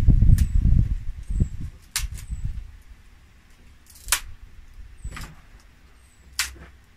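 Dry twigs and thin branches snapped by hand into kindling: rustling as the branches are handled at first, then about five sharp snaps, the loudest about four and six and a half seconds in.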